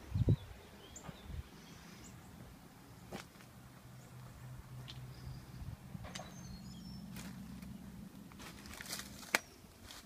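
Modified Chevy 355 small-block V8 with a big cam idling through a Flowmaster Outlaw exhaust: a low, uneven rumble, with a sharp click near the end.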